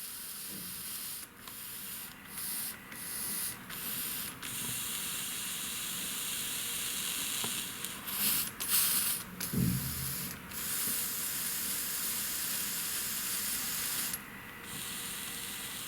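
Hot soldering iron tip held against a wet cleaning sponge, the water sizzling and hissing into steam, with the hiss briefly dropping out several times.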